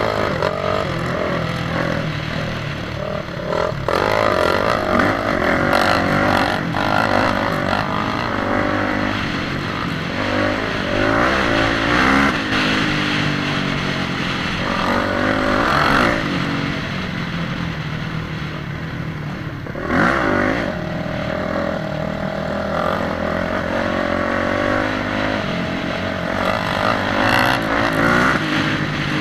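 Motorcycle engines revving hard, rising and falling in pitch again and again, with louder surges several times.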